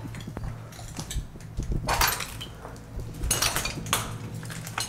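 Footsteps crunching over rubble and broken tile, with irregular bursts of clinking and scraping as debris shifts underfoot, loudest about two seconds in and again past the three-second mark.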